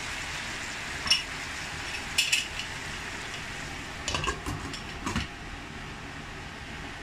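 Sliced potatoes sizzling steadily in oil and water in a stainless steel pan. Sharp clinks come about one and two seconds in, then a cluster between four and five seconds in as a glass lid is set down on the pan's rim.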